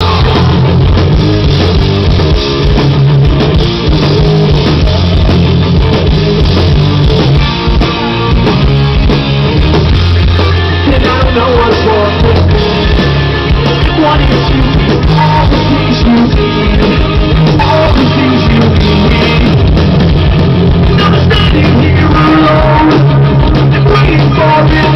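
Loud rock music with guitar and drums and a steady bass line.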